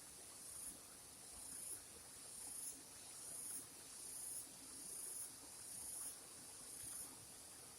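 An insect calling in a faint, high-pitched buzz that swells and cuts off sharply about once a second, over and over.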